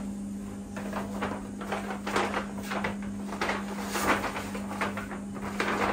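Brown paper bag being handled and folded shut, crinkling in short, irregular rustles over a steady low hum.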